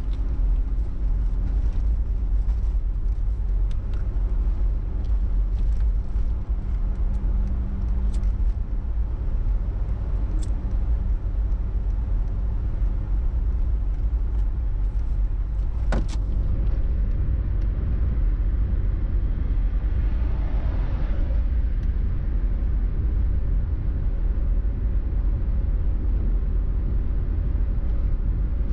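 A car driving at steady speed: a constant low rumble of engine and road noise, with a few light ticks and one sharp click about sixteen seconds in.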